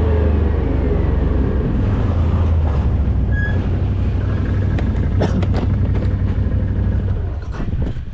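Dirt-bike engine running steadily and deep, its pitch falling over the first second or so as the revs drop, with a few sharp knocks about five seconds in and again near the end.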